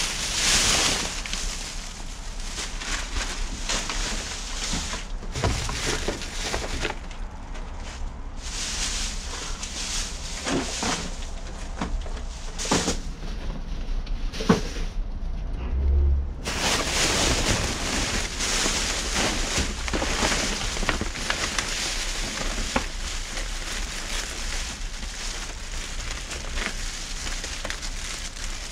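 Clear plastic trash bags crinkling and rustling as they are handled and pulled about in a metal dumpster. The crinkling eases off for a few seconds around the middle, a low thump follows, and then the dense crinkling resumes.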